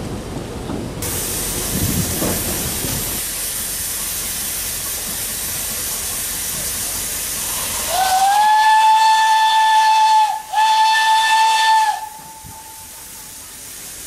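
Narrow-gauge steam locomotive hissing steadily, then sounding its steam whistle in two blasts, the first longer and sliding up to pitch at its start. The whistle is the loudest sound, and the hiss falls away once it stops.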